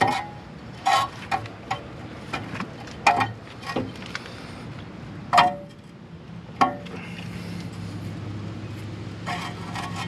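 Sharp metallic clinks of a C-clamp being screwed in against an old brake pad to push the brake caliper piston back, about eight clinks over the first seven seconds. A steady low hum comes in about seven seconds in.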